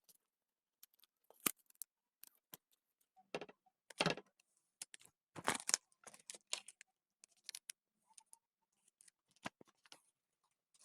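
Faint, scattered crackles, clicks and short rustles of sticky tape and folded paper being handled as the open sides of a paper bag are taped shut, busiest about four seconds in and again around the middle.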